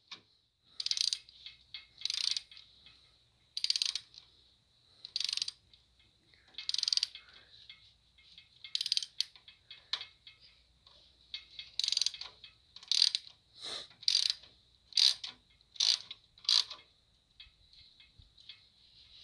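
Hand socket ratchet clicking in short runs as it is swung back between pulls, tightening the bolts that hold an aluminium adapter plate to a Cummins diesel block. The runs come closer together near the end, then stop.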